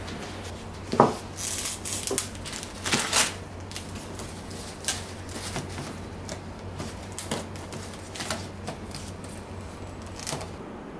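Household handling sounds: rustling as hands smooth a cotton tablecloth and refill tissues into a wicker tissue box, with a sharp knock about a second in and scattered small clicks and rustles after.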